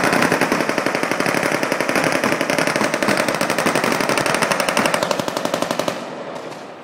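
Sustained automatic machine-gun fire, a fast even stream of shots echoing off the surrounding buildings, most likely blanks fired in a staged demonstration. It stops abruptly about six seconds in, leaving a fading echo.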